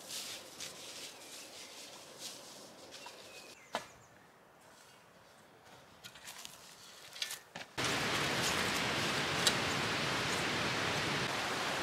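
Footsteps in dry leaves and twigs, with one sharp snap a little under four seconds in. About eight seconds in, a steady rush of flowing water from a small cascading woodland stream cuts in suddenly and goes on evenly.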